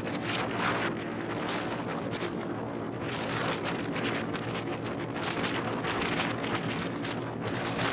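Motorcycle engine running steadily while riding, with wind noise on the microphone rising and falling in gusts.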